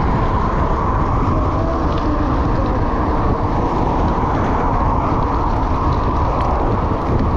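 Steady wind rush buffeting an action camera's microphone while riding a bicycle, a dense low rumble with no breaks.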